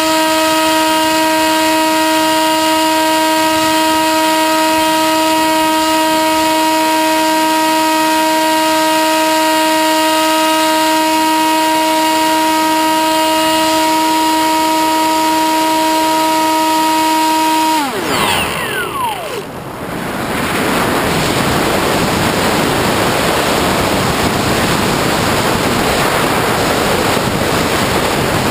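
Sky Surfer RC plane's electric motor and pusher propeller running at a steady pitch, then winding down sharply about eighteen seconds in as the throttle is cut. After that, wind rushing over the airframe as it glides.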